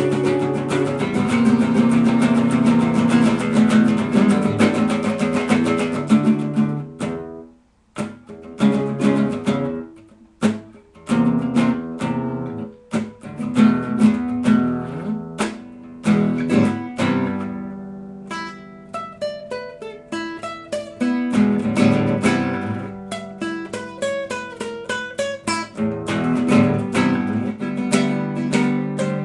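Acoustic guitar playing an instrumental passage. Steady strumming breaks off briefly about a quarter of the way in, gives way to single picked notes and short strums, and fuller strumming returns for the last third.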